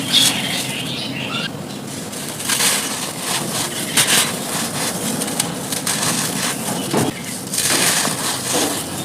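Dry pure-charcoal mug pieces being crushed and crumbled, a steady gritty crackle with several louder crunches as chunks give way.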